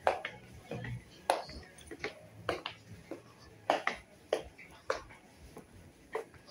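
Irregular sharp clicks and clinks, about one or two a second, over faint background voices.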